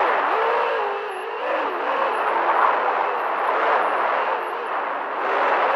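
FPV racing quadcopter's motors and propellers whining as heard from its onboard camera, the pitch wavering up and down with the throttle over a steady rush of wind noise.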